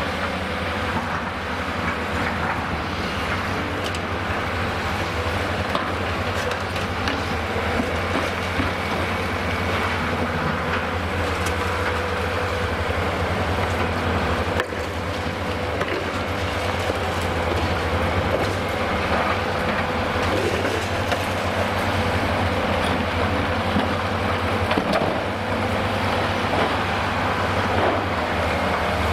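Cat 390D demolition excavator with a high-reach boom running steadily under load: a constant diesel drone with a steady hydraulic whine over it, and scattered cracks and crunches as its hydraulic jaws break up concrete at the top of the building.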